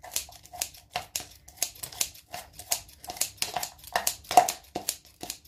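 Kitchen scissors snipping chopped red onion inside a plastic jug: quick repeated snips, about three or four a second.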